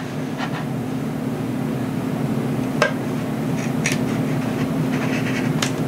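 A steady low hum, with a hobby knife blade cutting and prying into a balsa wing trailing edge: three sharp clicks, about three seconds in, a second later and near the end, with light scraping between.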